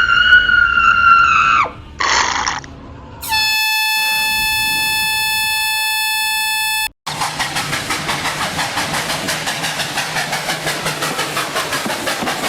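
A sequence of edited sound effects: a high-pitched, wavering screech that cuts off under two seconds in, a short hissing burst, then a steady horn-like tone held for about three and a half seconds. After an abrupt cut comes a loud noisy pulsing, about three pulses a second.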